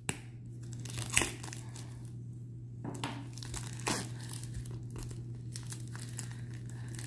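Packaging crinkling and rustling as a boxed tarot deck is unwrapped by hand, with sharper crackles about a second in and again near three and four seconds. A steady low hum runs underneath.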